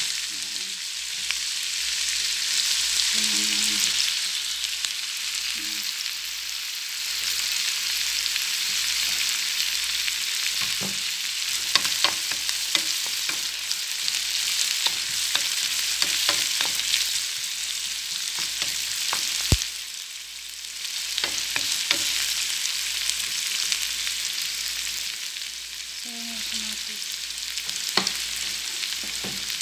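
Chopped onions and garlic sizzling in oil in a metal frying pan. The sizzle swells and dips, with scattered clicks and scrapes of a wooden spatula against the pan as they are stirred, most of them about halfway through.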